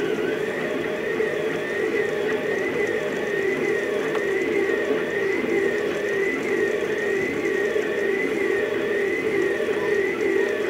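Stepper motors of a Rostock delta 3D printer whining as it prints at high speed. The pitch swings up and down in a steady repeating cycle, about three times every two seconds.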